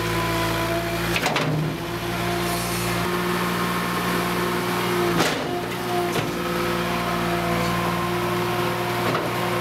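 A small engine running steadily throughout. Three sharp cracks, about a second in, about five seconds in and near the end, come from the wood of a tree stump splitting as it is forced apart.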